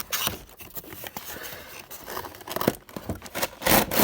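Toy model car packaging being handled and opened: irregular crinkling, rustling and tearing of cardboard and plastic, loudest near the end.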